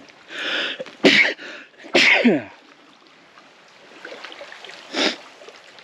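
A man's breathy exhale and short grunts, then a loud sigh that slides down in pitch as he sits down, with a short burst of noise near the end.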